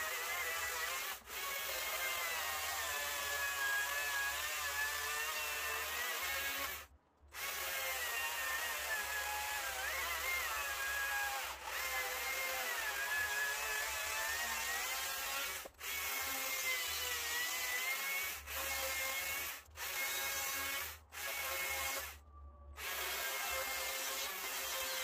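Stihl MSA 140 C battery chainsaw with a 12-inch bar cutting western red cedar, blocking out a carving. Its motor whines steadily and wavers up and down in pitch as it bogs and frees in the wood. The sound drops out abruptly several times.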